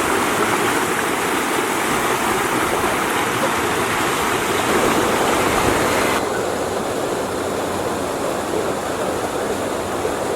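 Mountain valley stream rushing over rocks, a loud steady water noise. About six seconds in it becomes slightly quieter and duller.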